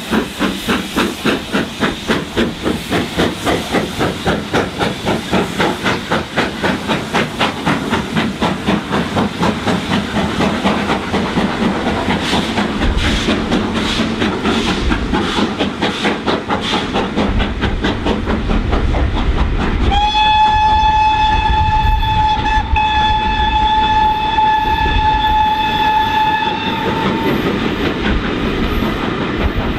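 GWR-design steam locomotive pulling away with a train, its exhaust chuffing in an even beat that quickens as it gathers speed, then giving way to the rumble and clatter of the coaches rolling past. About twenty seconds in, a long steady whistle sounds for about seven seconds.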